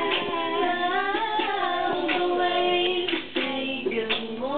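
A girl singing a pop song, holding long notes that slide in pitch.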